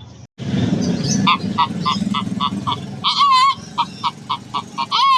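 A man imitating chicken calls with his voice: after a brief dropout, a quick run of short, clipped clucks about four a second, broken twice by a longer wavering call.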